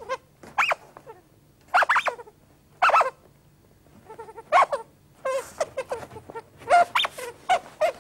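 Squeaky, chirping made-up voices of toy puppet characters: a string of short calls, each bending up and down in pitch, with a short pause about halfway through.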